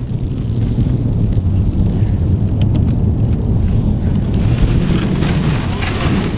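Wind buffeting the microphone: a loud, steady low rumble that flutters unevenly.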